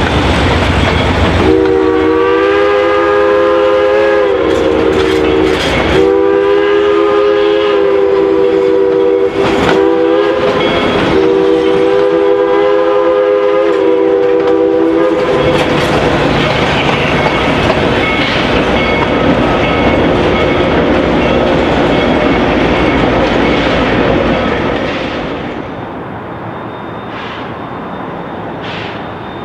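A narrow-gauge train rumbling past with wheel clatter while the locomotive sounds a chime whistle: a run of long chord blasts with short gaps between them, for about fourteen seconds. Near the end the sound drops to a quieter, more distant rumble.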